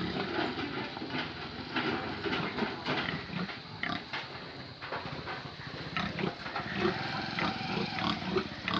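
Several pigs grunting continuously in a pen, short low grunts one after another with scattered knocks and shuffling.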